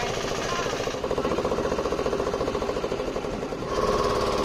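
A small engine running with a fast, even knocking beat. Near the end the sound shifts and a steady higher hum joins it.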